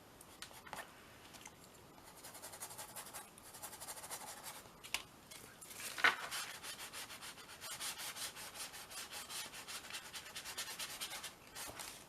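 Fast, even back-and-forth rubbing strokes across a small canvas while colour is worked in, with a sharper tap about six seconds in.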